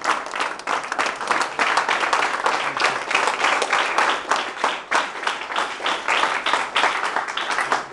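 A roomful of people applauding: many hands clapping together in a steady round of applause.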